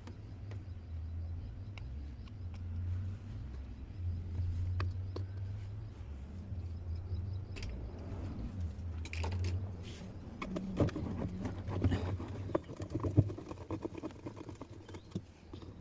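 Hand work on a washing-machine gearbox: a low rumble of parts being handled and turned, then a run of metal clicks and knocks from about ten seconds in.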